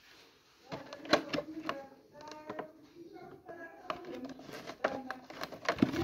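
Sharp clicks and taps from a cardboard gift box with a clear plastic window being handled and tipped, the loudest about a second in, with indistinct voices.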